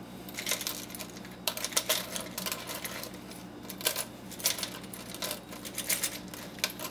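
Small gold-plated connector pins and scrap circuit-board pieces clicking and clattering as they are set down by hand on a digital scale, in irregular light clicks, over a faint steady hum.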